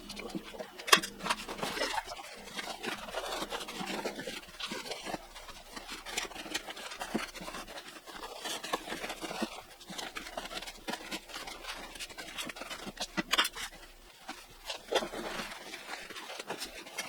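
Pond liner sheet being handled and folded into a wooden trunk: irregular rustling and scraping with many small clicks and knocks, and a sharp louder click about a second in and another near 13 seconds.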